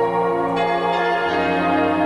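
Background music of held, bell-like tones, with a new chord struck about half a second in and another just past a second.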